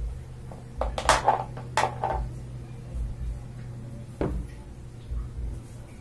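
Sharp knocks and clatter from the parts of a washing machine's tub being handled: a quick cluster about one to two seconds in and a single knock a little after four seconds, over a steady low hum.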